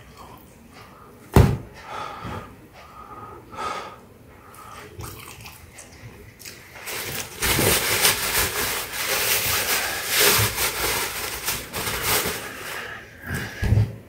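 Paper kitchen towel crinkling and rustling as it is unfolded and handled, starting about seven seconds in and going on for several seconds. Before that, a single sharp knock on the wooden cutting board about a second and a half in.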